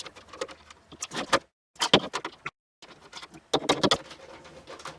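Screwdriver and screws clicking and rattling against the plastic case of a 1980s Armatron toy robot as it is unscrewed and handled, in irregular sharp clicks with a short complete break in the middle.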